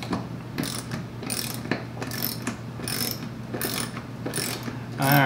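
Socket ratchet wrench worked back and forth on a caster's axle nut, its pawl clicking in short runs about twice a second as the nut is turned.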